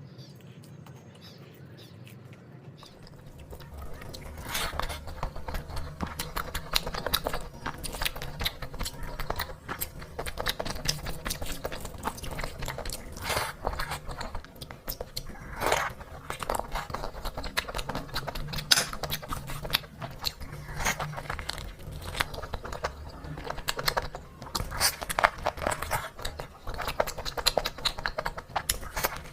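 Close-miked eating sounds: irregular wet smacks and clicks of chewing, starting about three seconds in and going on steadily.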